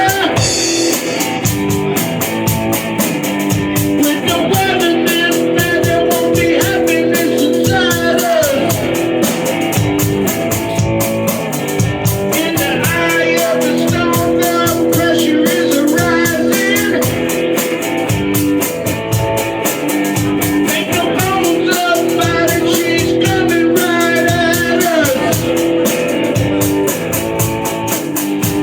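A rock song with a steady drum beat, guitar and a singing voice.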